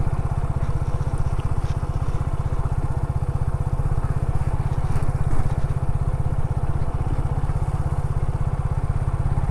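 Motorcycle engine running steadily at slow riding speed, heard close up from the rider's seat as an even, low pulsing exhaust note.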